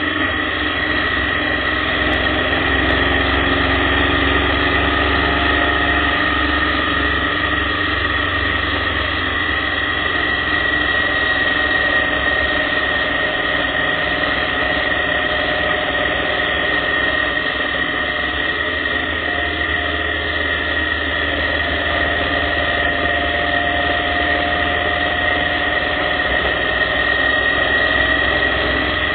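Motorcycle engine running at road speed, its note rising and falling gently with the throttle, under a low rumble of wind buffeting the bike-mounted microphone. A steady high-pitched whine runs along with it.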